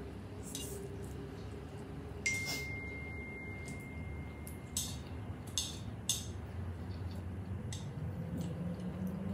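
Tableware clinking during a meal: a handful of sharp taps, one of which, about two seconds in, leaves a clear ringing tone that fades slowly, like glass being struck.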